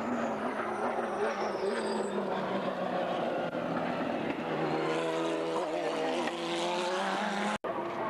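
Lister Storm race car's Jaguar-based V12 engine, loud at racing speed as the car goes by, its pitch dipping and climbing with the throttle. The sound breaks off abruptly near the end.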